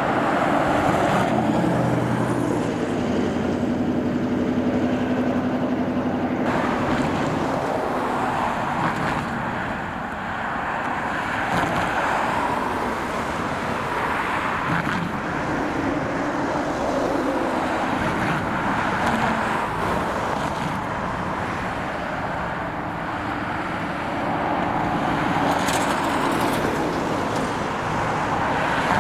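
Road traffic on the road over the crossing: cars passing one after another in a continuous swell of engine and tyre noise, with a vehicle's low engine hum in the first few seconds.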